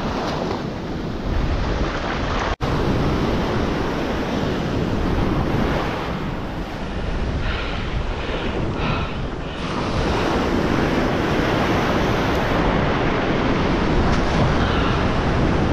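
Ocean surf washing and breaking on the beach, with wind buffeting the microphone. The sound cuts out for an instant about two and a half seconds in.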